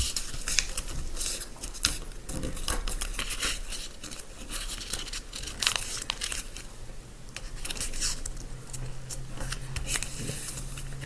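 A sheet of paper being folded and creased by hand: rustling and crinkling with many irregular crackles as the folds are pressed down.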